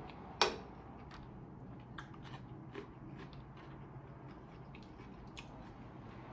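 Close-miked eating sounds: chewing, with scattered small clicks from a mussel shell and a spoon being handled. One sharp click comes about half a second in.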